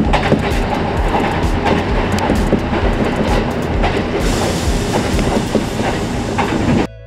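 Kintetsu electric train heard from inside the car while running at speed, its wheels clattering over rail joints with a steady rumble underneath. The sound cuts out briefly near the end.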